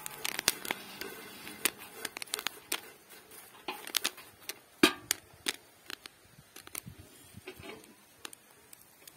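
Popcorn being stirred with a wooden spoon in an enamelled pot: scattered sharp clicks and taps that thin out toward the end, with one louder knock about five seconds in.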